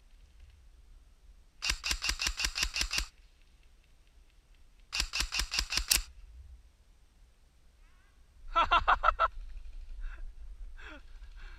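Airsoft gun firing two bursts of rapid full-auto shots, the first about a second and a half long and the second about a second. A third, shorter rattling burst follows about eight and a half seconds in.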